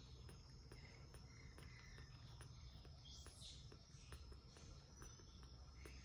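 Near silence, with a faint steady high-pitched insect drone running through, of the kind crickets make.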